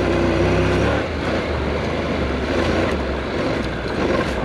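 Honda NC700X motorcycle's parallel-twin engine running under way, mixed with wind and road noise. The engine note shifts lower about a second in.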